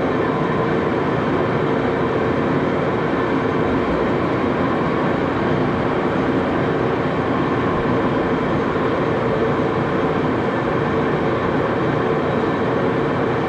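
Axelson engine lathe running steadily at about 350 RPM, a constant mechanical drone with a faint steady whine from its gearing, during a threading pass on a small 8-32 screw with the half nuts engaged.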